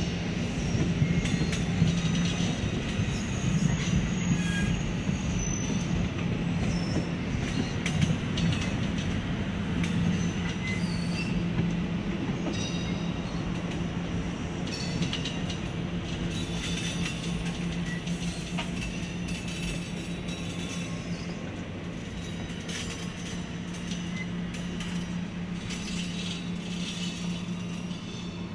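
Double-deck commuter train rolling slowly past and away: a steady low rumble and hum from the wheels and running gear, with short high-pitched wheel squeals here and there, fading gradually.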